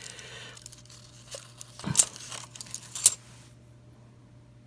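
Half-dollar coins from a freshly opened roll being handled, clicking and clinking against each other, with a couple of sharp clinks about two and three seconds in, over a low steady hum.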